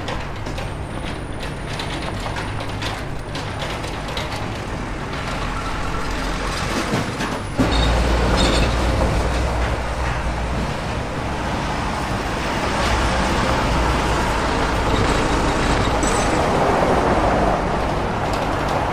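Heavy machinery running with a steady rumble and scattered knocks and clatter. A deeper, louder rumble comes in abruptly about seven and a half seconds in.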